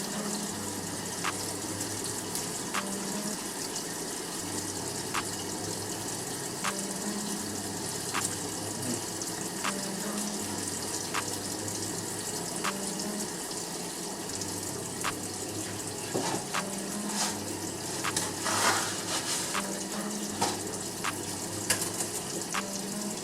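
Kitchen tap running steadily into a sink as dry spaghetti noodles are rinsed under it, with louder splashing about three-quarters of the way through.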